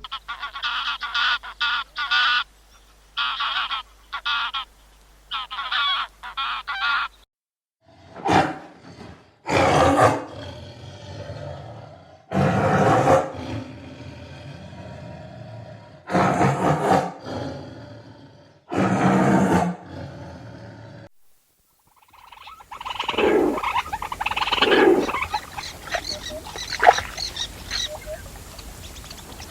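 Three different animals' calls in turn: a run of short, repeated pitched calls, then five loud calls a few seconds apart, then after a brief gap a busier, noisier stretch of calls.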